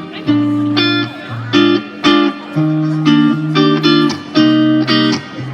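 Amplified instrumental passage of a pop song: plucked guitar chords over a bass line, the chords changing about every half second.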